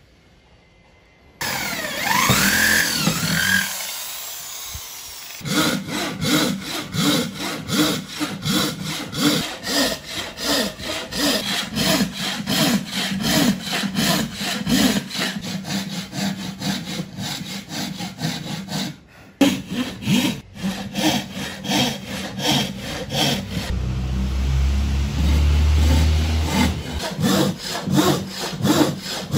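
Thin-bladed wooden frame saw cutting a curve through a thick wooden board, rasping in quick, even up-and-down strokes. Sawing starts about a second and a half in and breaks off briefly about two-thirds of the way through.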